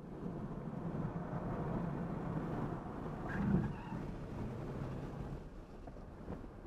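Cabin noise inside a Tesla Model 3 Dual Motor Long Range accelerating out of a corner: a steady rush of road and tyre noise, with a brief louder thump about three and a half seconds in.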